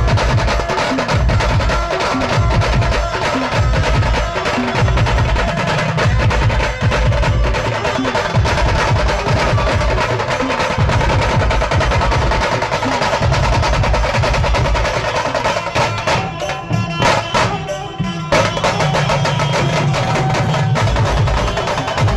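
Banjo party band music played loud through a sound system: an amplified banjo melody over heavy, driving drums and percussion. About three-quarters of the way through, the sound briefly thins out before the full band returns.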